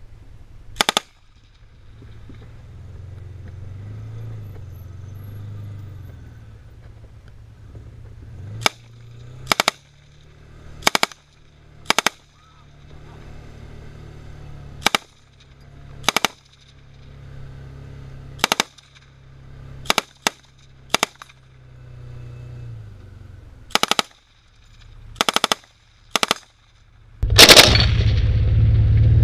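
M249 SAW light machine gun firing over a dozen short bursts of 5.56 mm at irregular intervals, ending with one longer burst near the end, the loudest. Beneath the shots, the ATV's engine drones low, rising and falling.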